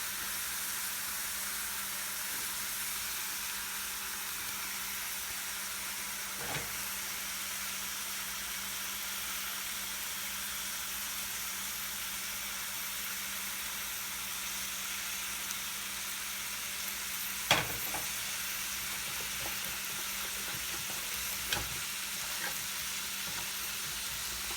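Strips of bacon frying in a hot pan, a steady sizzle, with a few short sharp clicks now and then, the loudest a little after halfway.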